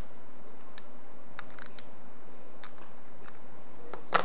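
Light, irregular clicks and taps of small parts and a hand tool while a Daiwa Steez SV TW 2024 baitcasting reel is being taken apart, with a sharper click near the end.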